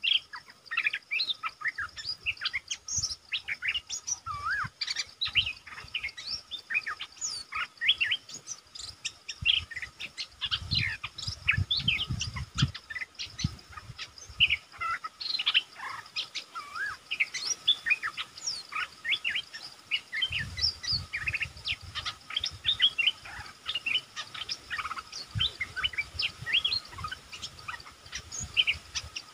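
Bulbuls calling: a dense, unbroken stream of short chirps and quick whistled notes, with several birds overlapping.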